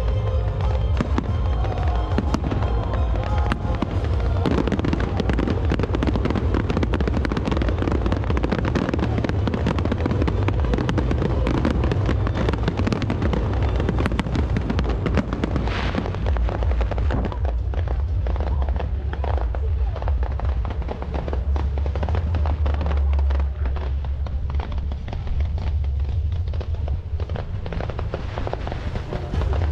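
Aerial fireworks display: many shells bursting in rapid succession, dense crackling over a heavy, continuous low rumble of booms. After about seventeen seconds the crackle thins out and the deep booming carries on.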